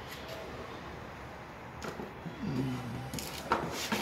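Hand tools scraping and working sand-cement mortar in harsh, noisy strokes that start about three and a half seconds in. Before them there is a single click and a brief low voice-like hum.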